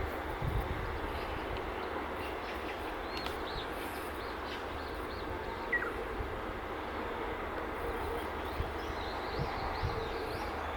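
Outdoor ambience: a steady low rumble with small birds chirping now and then, and one clear downward whistle about six seconds in.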